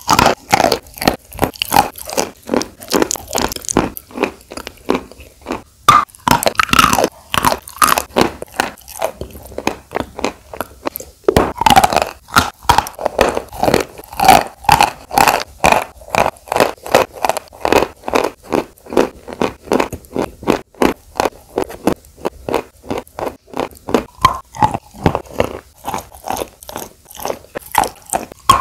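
Sawn chalk sticks coated in wet clay paste being bitten and chewed: a steady run of sharp, crackly crunches, two or three a second.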